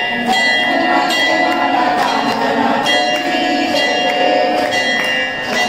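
Metal bells struck again and again, about twice a second, their ringing tones carrying on between strikes, over the hubbub of a crowd.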